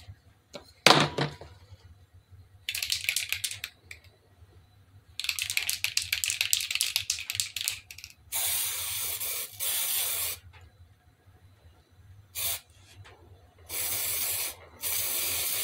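Aerosol spray can, rattled in two stretches and then sprayed in several hissing bursts of about one to two seconds each. A sharp knock comes about a second in.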